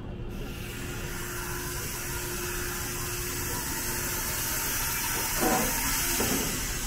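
Steady compressed-air hiss as the front nose gangway door of a 285-series Sunrise Express sleeper train opens ahead of coupling. The hiss starts just after the beginning, and two short, louder sounds come about five and six seconds in.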